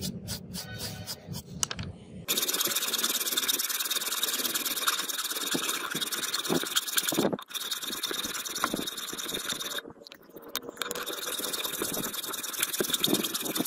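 Steel hand file rasping on a steel blade blank clamped in a vise. There are quick short strokes, about five a second, at first. From about two seconds in the filing runs fast and continuous, with two brief pauses.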